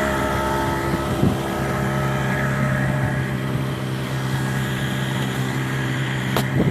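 A fire-brigade boat's outboard motor running steadily; about a second in, its pitch steps up as the engine revs higher. One short, sharp click near the end.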